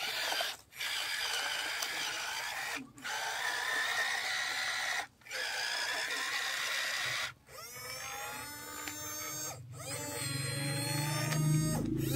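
Small electric gear motors of a toy remote-control excavator (HX 210A) whining as the boom and arm move, in runs of about two seconds broken by brief pauses. In the second half the whine rises and falls in pitch, and a deeper hum builds near the end.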